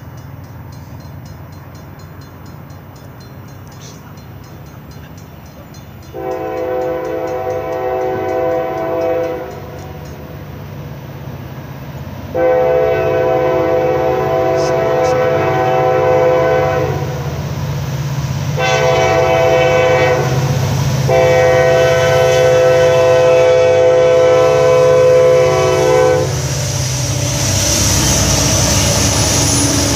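Norfolk Southern freight train's diesel locomotive approaching with a low engine rumble and sounding its multi-tone horn in four blasts, long, long, short, long, the standard grade-crossing signal. Near the end the locomotive passes close by in a rush of engine and wheel noise.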